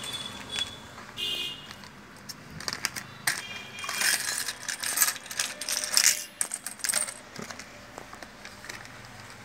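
A clear plastic bag crinkling, with small sewing-machine accessories (bobbins, presser feet, screwdrivers) clicking and clinking as they are handled and taken out. It is busiest between about four and six seconds in.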